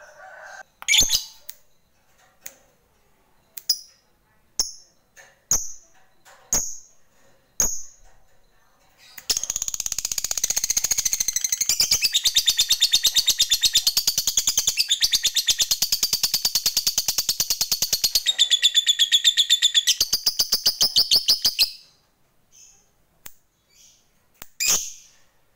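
Lovebird giving short sharp chirps about once a second, then a long, very fast chattering trill lasting about twelve seconds, then a few more chirps near the end. The long trill is the 'ngekek panjang' prized in fighter lovebirds.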